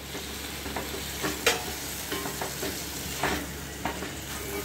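Chopped tomatoes sizzling as they fry in ghee in a kadhai, with a spatula stirring them and scraping against the pan several times.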